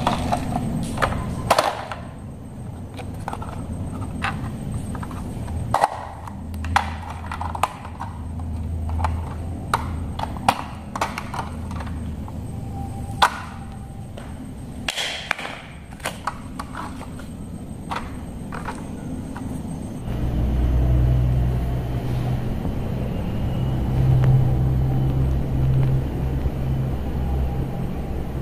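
Marbles clacking through wooden marble-run blocks: a string of sharp, irregular clicks and knocks. About two-thirds of the way through a steady low rumble comes in under them.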